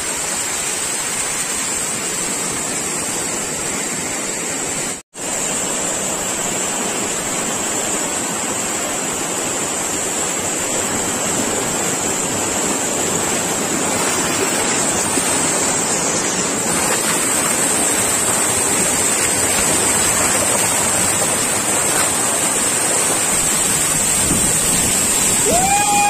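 Waterfall: the steady rush of a large volume of falling water crashing onto rocks, with no rhythm or pitch. The sound cuts out for a moment about five seconds in and grows a little louder in the second half.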